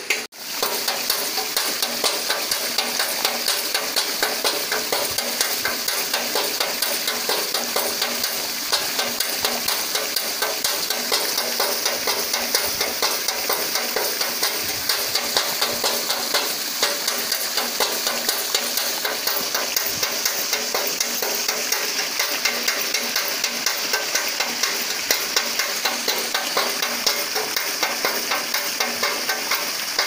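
Water from a pipe pouring and splashing onto the paddle wheel of a water-driven bird and rat scarer, with a regular knocking a few times a second as the turning wheel drives its noisemaker against metal.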